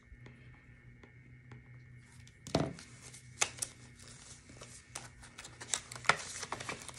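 Paper bills and binder pages being handled: rustling and crinkling with scattered small clicks, and a soft thump about two and a half seconds in.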